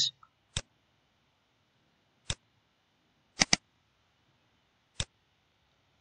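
Computer mouse clicking: single clicks about half a second in, around two seconds and at five seconds, with a quick double click around three and a half seconds.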